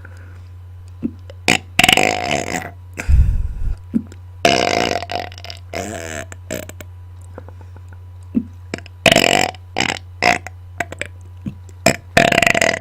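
A person burping into a close microphone: a string of four or five separate belches, the longest drawn out for about two seconds around the middle. A steady low hum runs underneath.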